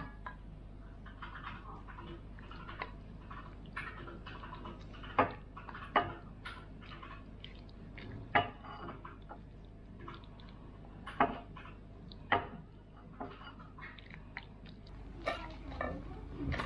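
Wooden spatula scraping saucy stir-fried noodles out of a nonstick frying pan into a ceramic bowl, with soft wet scraping throughout and about six sharp knocks of utensil and pan against the dishes.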